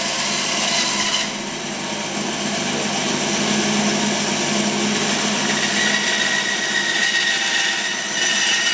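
Bandsaw running with its blade cutting through a chipboard panel as the board is fed through. Steady motor hum and blade whine under the cutting noise, which is louder in the first second and again near the end.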